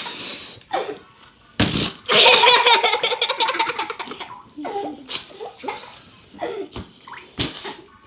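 Air let out through the stretched neck of a rubber balloon: a fast, buzzing, fart-like squeal about two seconds in that lasts around two seconds. Short rushes of air come just before it and again near the end, and there is children's laughter.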